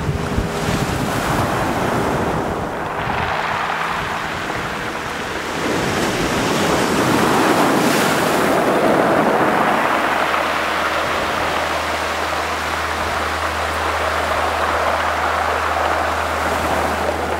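Ocean surf breaking and washing up a pebble beach, rising and falling in slow swells. A low steady hum joins about ten seconds in.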